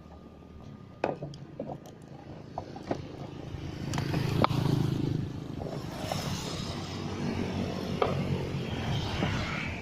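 An engine running, growing louder about four seconds in, with scattered sharp knocks and rattling clatter over it.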